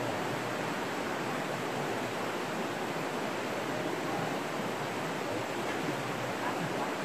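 Shallow river rushing steadily over rocks through a riffle: a constant, even rush of water.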